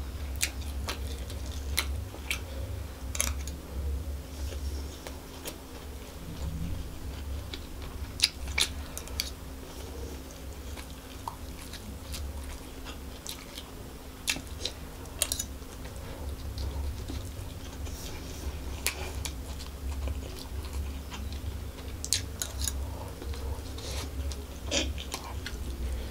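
A person chewing and biting mouthfuls of chicken fried rice, with scattered sharp clicks from a metal spoon scooping the rice, over a steady low hum.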